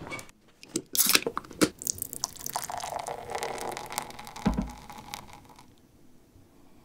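An aluminium can of beer is cracked open with a sharp snap and hiss about a second in. Then the beer is poured into a glass, splashing and foaming, with a low thump partway through.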